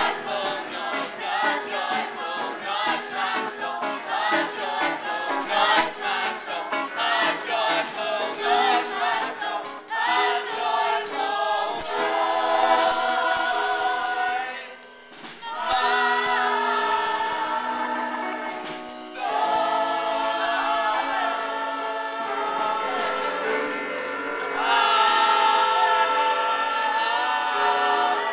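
Stage-musical ensemble singing a gospel-style chorus number with accompaniment. A quick, steady beat runs under the voices for the first ten seconds or so, then the chorus moves to long held chords, with a brief dip about halfway.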